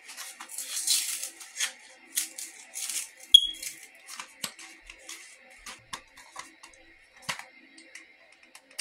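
A packet of CR123 batteries being opened by hand: crinkling and tearing in the first few seconds, with scattered clicks throughout and one sharp click about three and a half seconds in.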